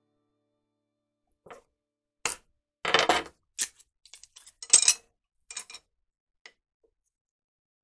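Split bamboo cane strips clicking and clattering against one another and on the wooden workbench as they are handled: a string of sharp clacks, loudest about three and five seconds in.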